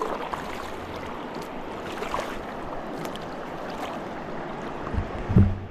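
River water rushing around a raft, a steady hiss, with a few light knocks. About five seconds in come a couple of loud low thumps.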